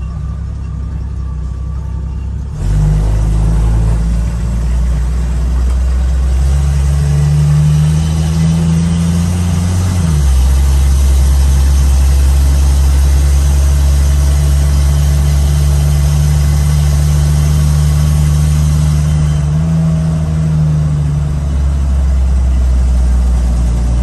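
1975 AM General DJ5-D postal Jeep's engine heard from inside the cab, pulling away and driving under load. It gets louder about two and a half seconds in, its pitch climbs and then drops suddenly about ten seconds in, as at a gear change, and it then runs steadily.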